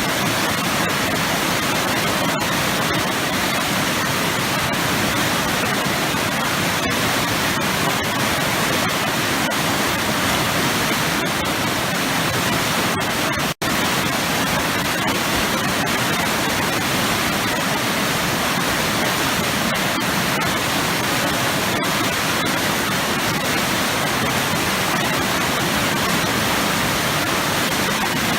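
Waterfall pouring into heavily churning water, a steady, dense rushing. About halfway through the sound drops out for an instant.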